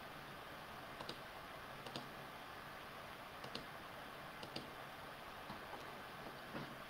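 A few faint, irregularly spaced clicks of a computer mouse over quiet room tone.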